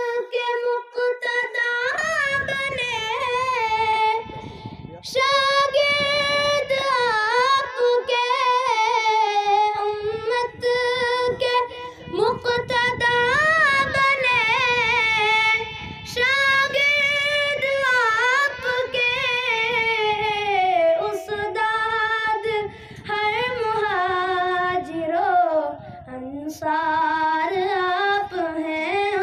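A boy singing a naat (Urdu devotional song) solo into a handheld microphone, with no instruments. He holds a high, wavering melody in long, ornamented phrases, pausing briefly for breath between lines.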